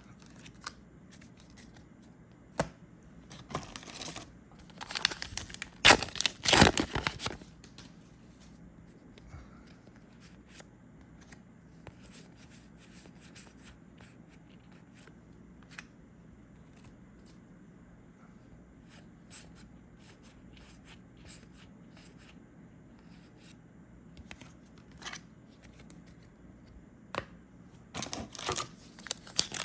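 Foil trading-card booster pack torn open and crinkled, loudest about five to seven seconds in, with more crinkling near the end. Between these come scattered light clicks of cards being handled.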